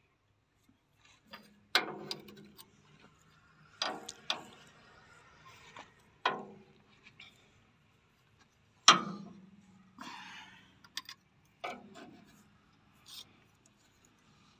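Metal hand tools clanking against the hydraulic pump fittings of a JCB JS81 excavator as a fitting is worked with a spanner and socket bar. There are about six sharp clanks at irregular intervals, the loudest about nine seconds in, several with a short metallic ring, and a few lighter clicks between them.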